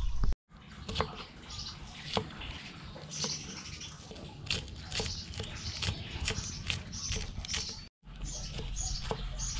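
Small birds chirping repeatedly over irregular sharp clicks and taps, with a low steady hum underneath; the sound drops out briefly twice.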